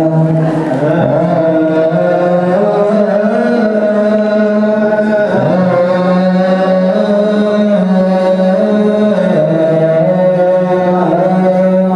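Ethiopian Orthodox liturgical chant: a group of men's voices singing together in long held notes, stepping to a new pitch every few seconds.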